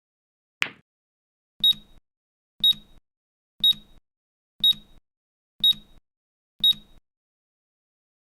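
A last sharp click, then a countdown timer's alarm: six short, high-pitched beeps, one a second, signalling that the minute is up, then it stops.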